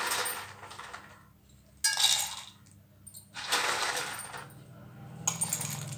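Handfuls of crisp fried boondi dropping into a stainless-steel mixer-grinder jar: a dry clinking rattle of small hard pieces on metal, in several separate bursts.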